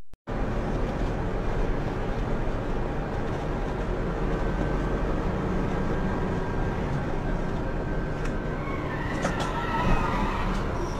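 Truck engine and road noise heard from inside the cab, a steady rumble that starts a moment in. A wavering high-pitched sound rises over it near the end.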